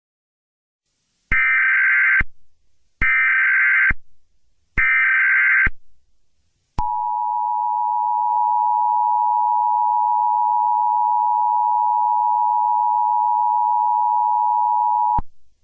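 Emergency Alert System tones. First come three short bursts of the SAME data header, about a second each with short gaps between them. Then the two-tone attention signal holds steady for about eight seconds and cuts off, marking the start of an emergency alert broadcast.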